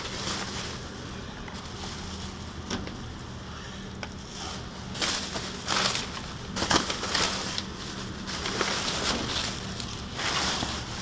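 Black plastic trash bags rustling and crinkling as hands pull them open and dig through them, in irregular bursts, the loudest a little past the middle and near the end.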